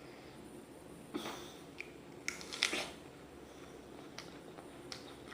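Biting into a raw apple, with a crisp crunch about a second in, then several louder crunches close together as the bite is chewed, and a few lighter crunches after.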